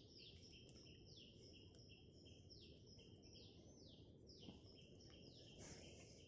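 Faint bird calling: a run of short, high, downward-sweeping chirps, two or three a second, over a low steady background hiss.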